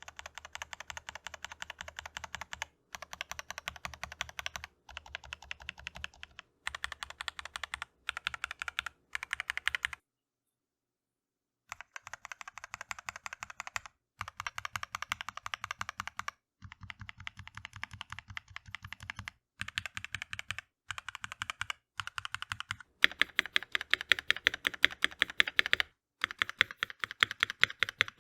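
Fast typing on a Keychron V1 mechanical keyboard, in runs of a couple of seconds broken by short pauses, with a silence of about two seconds some ten seconds in. From about 23 seconds in the keystrokes are louder and brighter.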